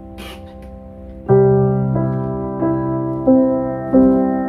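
Background piano or keyboard music: a held chord, then from about a second in, notes struck in a steady rhythm about every two-thirds of a second, each fading away.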